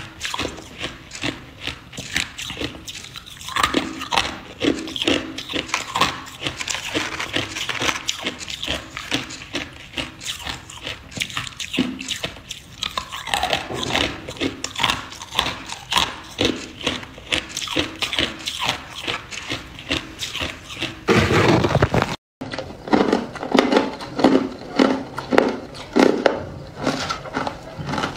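Hard clear ice being bitten and crunched in the mouth: a continuous run of sharp, crisp crunches several times a second, broken once by a brief gap about three-quarters of the way through.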